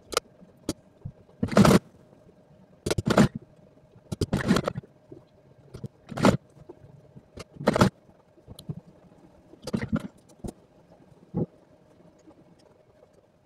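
Sewing machine stitching in short runs of under a second each, with pauses between, about a dozen times. The runs stop near the end.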